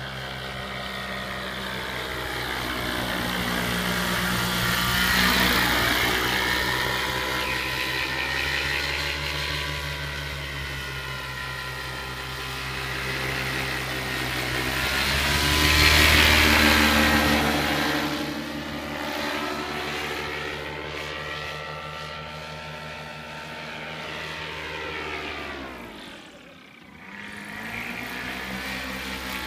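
Paramotor's engine and propeller droning as the powered paraglider circles overhead. It grows louder as it passes close about five and sixteen seconds in, with the pitch sliding down and back up as it goes by, and briefly falls away near the end.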